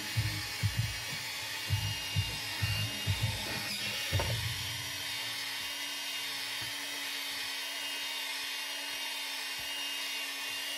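Small electric motor whirring steadily at high speed. A lower steady hum joins about four seconds in, and a low music beat plays under the first few seconds.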